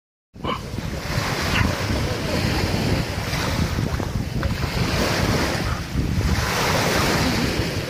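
Small sea waves washing up onto a sandy beach, with wind rumbling on the microphone.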